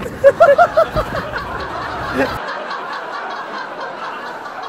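Young men laughing: a quick run of 'ha-ha' bursts in the first second or so, then quieter laughter.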